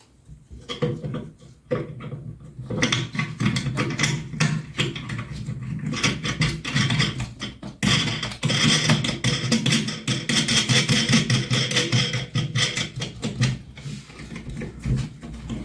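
Rapid, irregular scratching and clicking of hand work as a nylon wing nut is threaded onto a toilet-seat hinge bolt beneath the pan.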